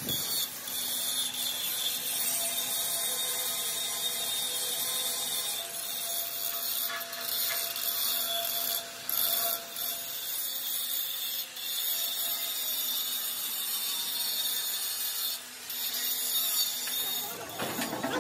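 Handheld angle grinder running steadily with its disc pressed against the steel of an excavator bucket, a steady high grinding hiss over the motor's whine. The grinder lets up briefly a few times, and the grinding stops shortly before the end.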